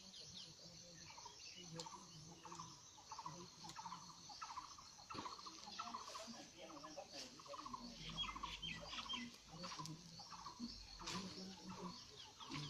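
Birds calling in short, repeated phrases over a steady high buzz of insects.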